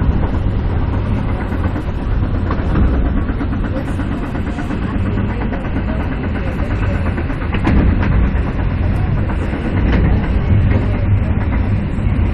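Metra commuter train running along the track, heard from the front cab: a steady low rumble of wheels on rail with a few sharp clicks as the wheels pass rail joints and switches.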